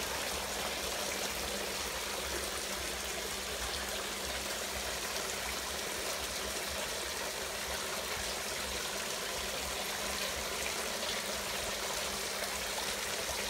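Water running steadily in a continuous flow during a pond water change.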